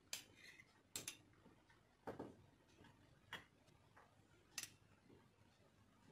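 Two metal spoons clicking and tapping against each other as a crumbly mixture is scooped off one spoon with the other: about five light clicks, roughly a second apart.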